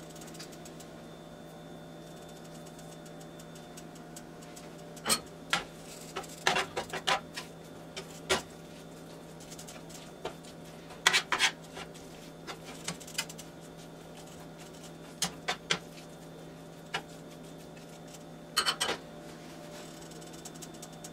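A metal fork scraping and clicking against a nonstick skillet in short bursts as ground venison is broken up and stirred while it browns, over a steady low hum.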